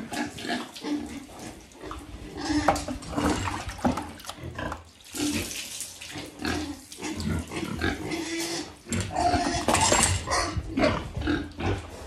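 A sow grunting again and again while water is scooped and poured over her, with splashes of water a few times.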